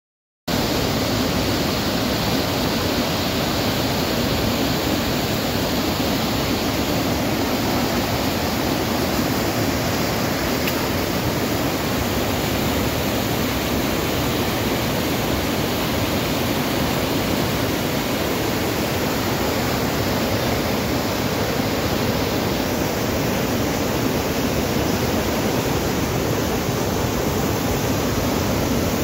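Floodwater rushing in a turbulent torrent: a steady, even rush of white water that starts suddenly about half a second in.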